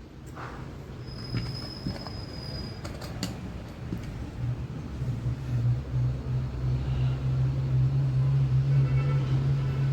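Electric finishing sander humming: a steady low hum that comes in about halfway through and grows louder. A few light clicks come before it. The hum is the fault the sander is being repaired for.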